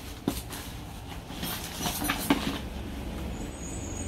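Rummaging through a crate of papers and sleeves: scattered rustling and a few sharp knocks as items are handled, over a low steady rumble.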